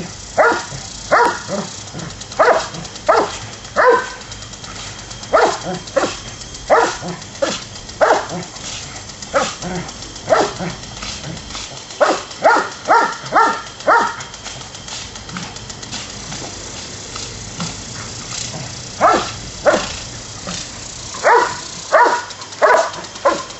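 Doberman barking over and over in runs of quick barks, with a pause of several seconds past the middle, over the steady hiss of a lawn sprinkler's spray that it is snapping at.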